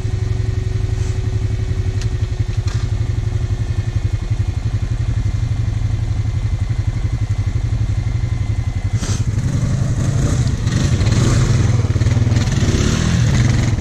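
ATV engine running steadily, close by, then louder and rougher from about nine seconds in as it is revved with the ATV bogged in deep mud.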